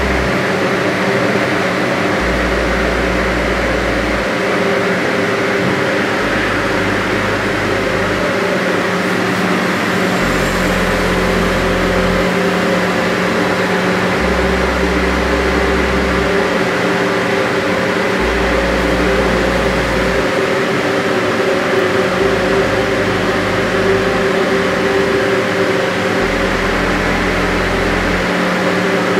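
The egg incubator's 8-inch circulation fans running: a loud, steady whirring hum.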